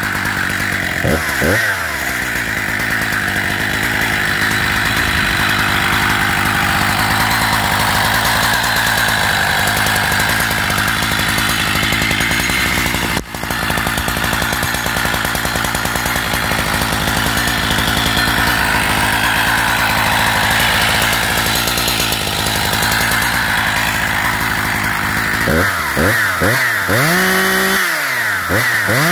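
Husqvarna 272XP two-stroke chainsaw run with no cut, held at full throttle in one long steady high note with a brief dip about halfway. Near the start and again near the end it is blipped in several quick revs that rise and fall back toward idle.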